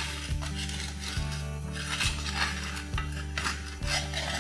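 Metal spatula scraping against an earthenware clay pan as a cooked rice-flour pitha is worked loose and lifted, over background music with a steady beat about once a second.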